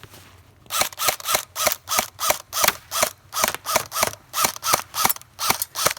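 Airsoft electric rifle fired in rapid semi-automatic shots, about four a second, each shot with a brief gearbox whir, in a steady string that starts about a second in; the rifle is being fired to test a snow-packed wall.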